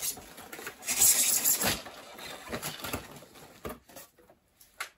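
Rustling and crinkling of packaging, with scattered small clicks and knocks, as toy train pieces are handled. The loudest crinkling comes about a second in, and near the end only a few clicks remain.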